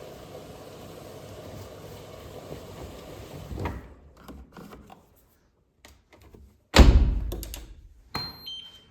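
Miele W1 front-loading washing machine door shut with a heavy thump, then a smaller knock, followed by a few short electronic beeps from the control panel near the end.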